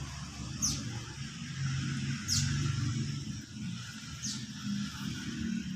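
A caged songbird gives short, high downward-sweeping calls, four of them about every one and a half to two seconds, over a low background rumble.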